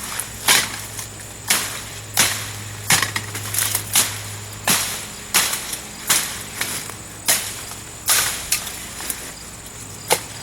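A big machete-style knife forged from a farrier rasp chopping through tall bamboo-like stalks: a dozen or so sharp whacking cuts, roughly one a second, each with a brief crackle and swish as stalks split and fall.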